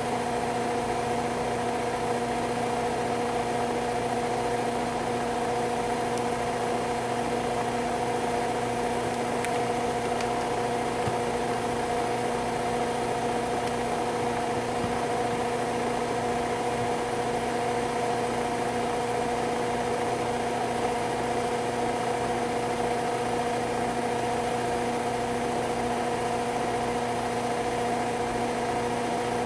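A steady machine hum that holds one pitch and level without change.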